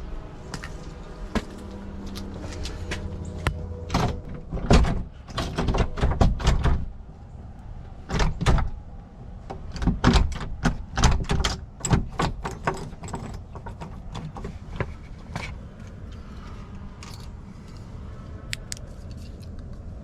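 A door being handled: an irregular run of knocks, clicks and rattles, thickest in the middle stretch.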